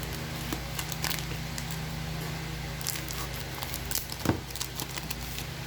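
Light crinkling, rustling and small clicks of trading cards and foil pack wrappers being handled, with a brief louder rustle about four seconds in. A steady low hum runs underneath.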